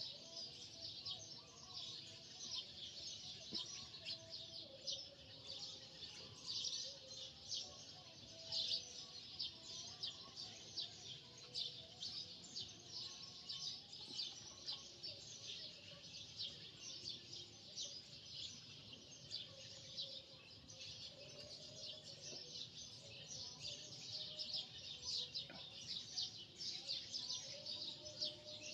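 Many small birds chirping and twittering at once, a dense, continuous chatter of short, high chirps.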